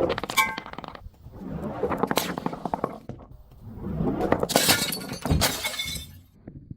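Glass breaking and crunching in three bouts of dense crackling and shattering, with brief ringing glass notes in the first.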